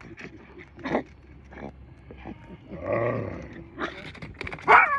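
Small Yorkshire terrier whining and yipping in excitement at a fish being thrown back: short cries, one longer drawn-out cry about three seconds in, and sharp yips near the end.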